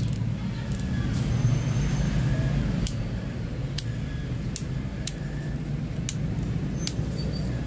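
Star drag clicker on a KastKing Valiant Eagle baitcasting reel giving a few separate, sharp clicks at irregular intervals as the drag is turned. A steady low hum lies under it.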